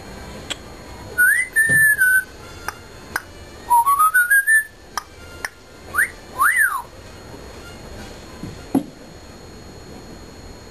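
African grey parrot whistling: a rising whistle that levels off about a second in, a quick run of notes stepping upward around four seconds, then two short up-and-down swoops, before it falls quiet.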